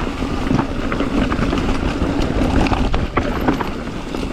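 Mountain bike rolling fast over a rocky trail: wind rushing over the microphone, with the tyres and frame rattling and knocking over the rocks in quick irregular clicks.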